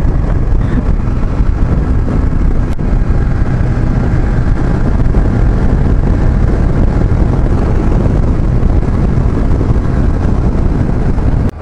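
Honda CG Fan motorcycle under way at road speed: its small single-cylinder engine runs steadily under a loud rush of wind on the microphone. The sound cuts off abruptly just before the end.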